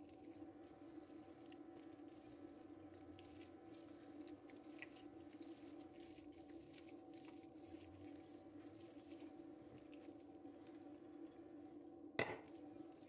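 Faint wet squishing and patting of a hand kneading soft buttery dough in a glass bowl, over a steady low hum. One sharp knock about twelve seconds in.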